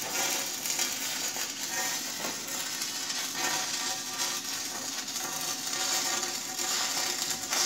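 Stick (shielded metal arc) welding: the arc crackles and sizzles steadily as the electrode rod burns against the steel railing.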